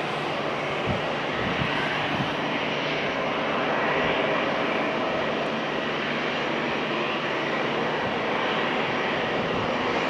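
Aircraft engine noise, a steady, continuous rush of sound that grows slightly louder near the end.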